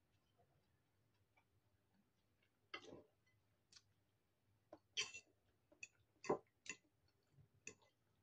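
Eating noises: a metal fork clicking and scraping against a ceramic bowl while noodles are twirled, with a few short mouth sounds of eating. The clicks come irregularly, a handful spread over several seconds, the loudest in the second half.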